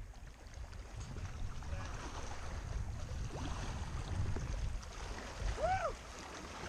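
Wind buffeting the microphone over small lake waves lapping at a rock shore. A brief, faint, rising-then-falling call is heard about five and a half seconds in.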